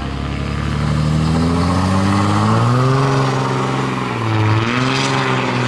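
Dodge Ram's Cummins turbo-diesel with a straight-pipe exhaust made of welded electrical conduit, pulling away under acceleration. The engine pitch climbs, drops at a gear shift about three seconds in, then climbs again and holds.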